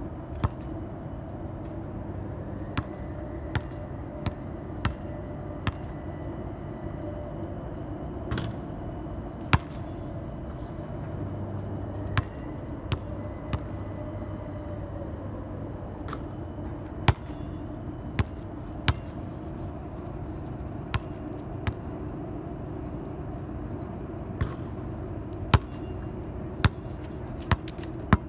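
A basketball bouncing on a hard outdoor court: sharp single knocks every second or so at an uneven pace. A steady low hum runs underneath.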